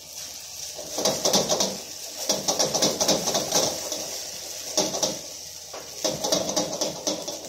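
A cooking utensil scraping and tapping against an iron wok in several bursts of rapid strokes, over a steady high hiss.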